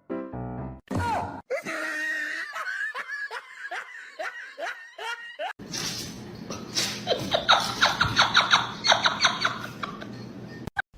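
A brief tail of music, then human laughter. First comes a run of high-pitched laughs, about two a second; about halfway through it turns into louder, breathier laughter in quick pulses.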